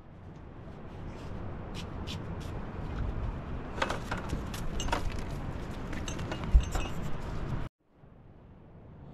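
Glass tea cups clinking against each other and a tray as they are carried along, over a low rumble, with one heavier thump about six and a half seconds in. The sound cuts out abruptly near the end.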